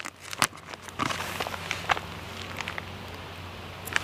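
Plastic zip-seal bag being pulled open, its seal popping in a few sharp clicks about the first second, then the plastic crinkling and rustling as it is handled.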